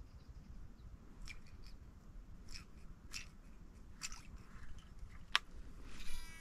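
Heddon Super Spook Jr topwater lure twitched across calm water, giving short irregular ticks and splashy clicks about every half second to second, with a sharper one late on. A brief wavering chirp sounds near the end.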